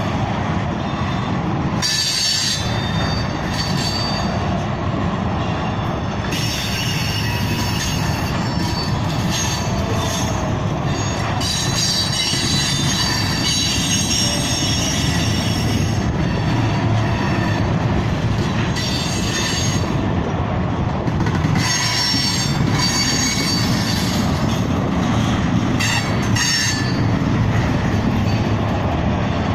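Freight train of railroad oil tank cars rolling past: a steady rumble of wheels on rail, with high wheel squeal coming and going several times.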